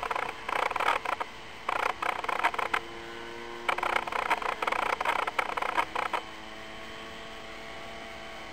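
Distant 20 cc two-stroke petrol engine (Zenoah Titan ZG20) of a large radio-controlled model plane running steadily in flight, a faint even hum. Over it, a run of short, irregular bursts of noise stops about six seconds in.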